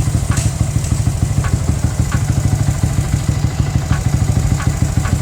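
Yamaha Vixion Lightning's 150 cc single-cylinder four-stroke engine idling steadily, with a faint tick recurring about every two-thirds of a second.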